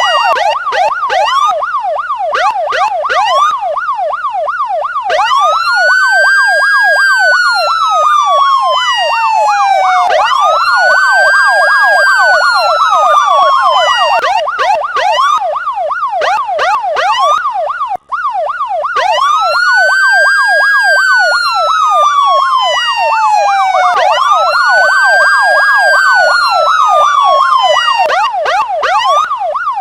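Electronic police siren sounding continuously, loud: a fast yelp of rapid up-and-down sweeps several times a second, overlaid by a wail that rises sharply and then slowly falls over about three seconds, repeating every four to five seconds. The sound drops out for an instant about 18 seconds in.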